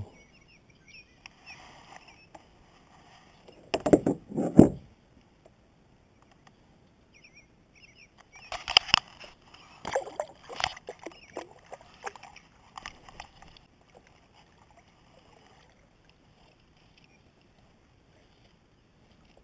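Two loud knocks about four seconds in, then water splashing and sloshing for several seconds as a hand releases a bluegill over the side of a kayak, dying away near the end.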